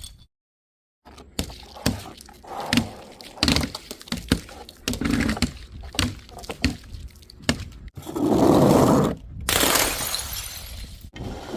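Glass bottles breaking: a string of sharp knocks and clinks, then two longer, louder crashes of shattering glass in the second half. A moment of dead silence at the start.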